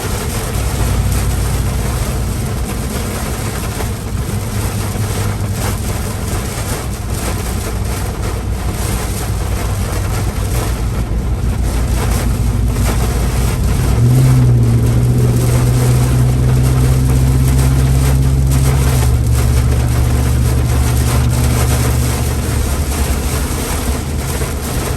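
Heavy rain and wet-road noise hissing around a moving vehicle, over the steady drone of its engine. About 14 s in the engine note steps up and holds for several seconds, then eases back.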